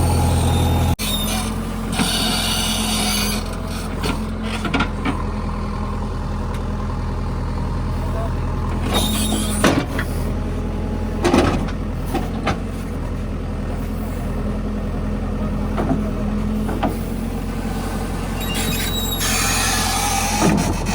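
JCB 3DX backhoe loader's diesel engine running steadily while it works, with bursts of hiss and scattered short knocks and clanks.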